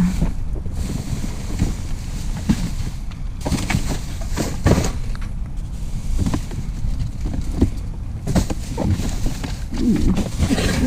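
Wind buffeting the microphone in a steady low rumble, with scattered rustles and knocks, loudest between about four and five seconds in.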